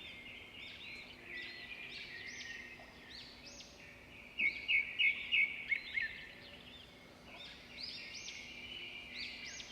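Small songbirds chirping and twittering, many short overlapping calls, with a louder run of quick chirps about four to six seconds in.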